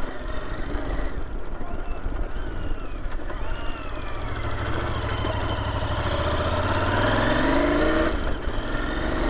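Royal Enfield Interceptor 650's parallel-twin engine running as the motorcycle is ridden slowly. The revs climb and the engine grows louder from about four seconds in, then ease off near the end.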